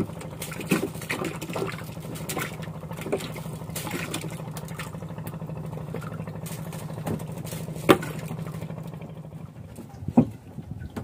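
A steady low engine hum that dies away about nine and a half seconds in, with scattered clicks and knocks from hands working fishing line and bait on the wooden boat deck; the sharpest knocks come about eight and ten seconds in.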